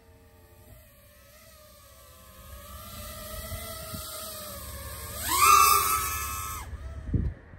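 FPV racing drone's brushless motors whining, the pitch wandering with the throttle, then climbing sharply about five seconds in and cutting off abruptly a second and a half later. A low thump follows near the end.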